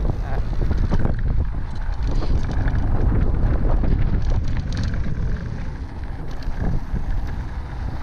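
Wind buffeting the camera microphone while a Haibike DH 9.0 electric mountain bike rolls along a dirt singletrack, with tyre noise on the dirt and scattered clicks and rattles from the bike over bumps.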